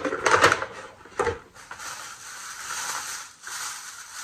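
Paper and plastic shopping bags rustling and crinkling as things are taken out of them, with a few loud rustles in the first second and a half, then quieter handling.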